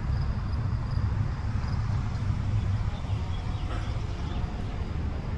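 Electric motor and drivetrain of an Axial Capra 1/10-scale RC rock crawler running steadily as it crawls over rocks, a low steady rumble.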